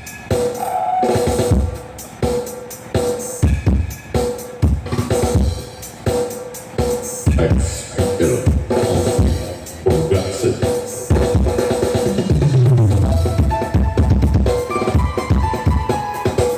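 DJ dance music with a heavy kick drum, snare and deep bass, played loud through a sound system stacked with eight planar subwoofer boxes. A deep bass sweep falls in pitch about three-quarters of the way through.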